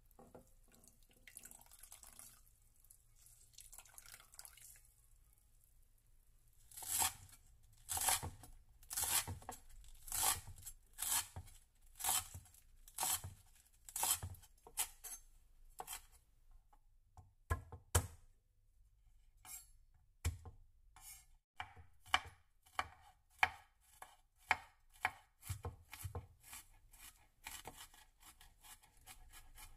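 A chef's knife chopping on a wooden cutting board: first chives, in even strokes about one a second, then garlic, in quicker strokes. In the first few seconds there is only faint wet squishing as a hand squeezes the water out of grated jicama in a glass bowl.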